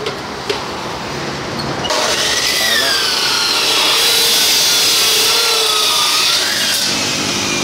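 Abrasive chop saw (cut-off saw) cutting through a metal bar: from about two seconds in, a loud steady grinding with a high whine that wavers in pitch, easing off near the end.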